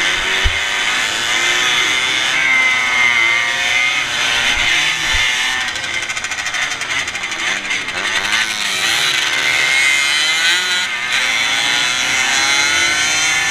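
Small two-stroke racing motorcycle engine heard from on board at speed, its revs rising and falling through the corners, over wind noise. A short low thump about half a second in.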